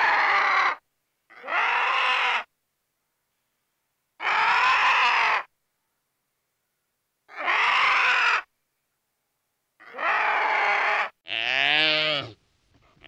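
An animal calling repeatedly: six drawn-out calls of about a second each with silent gaps between them, the last one lower and falling in pitch.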